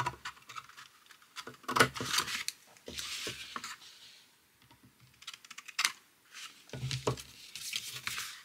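Craft scissors snipping through thin card in several short cuts, with the card stock rustling as it is handled and turned.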